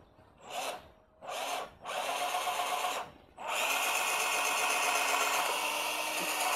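Cordless drill boring a hole into a small wooden block: two short trigger bursts, a longer run, a brief stop about three seconds in, then a steady run with a motor whine.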